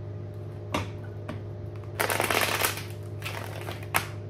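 A deck of tarot cards being shuffled by hand: a few sharp snaps of the cards, then a longer riffling run about two seconds in, a shorter one after it, and a last snap near the end.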